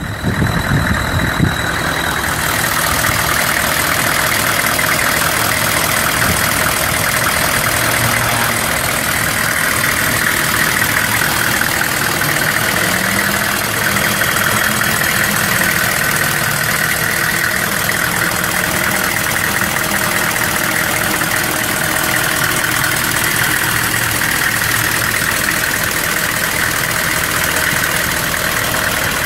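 1997 GMC Sierra 3500's 6.5-litre V8 turbo diesel idling steadily.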